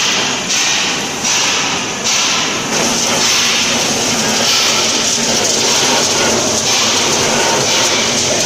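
Industrial mushroom popcorn popping machine running: a loud, steady, dense noise that pulses regularly about every 0.7 seconds for the first three seconds, then runs on evenly.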